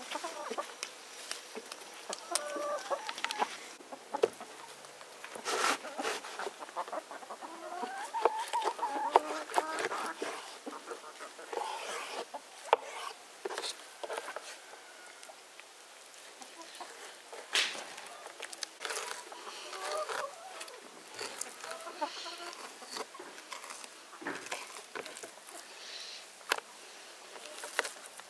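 Chickens clucking on and off, with scattered sharp clicks and knocks of a knife cutting raw liver on a wooden board.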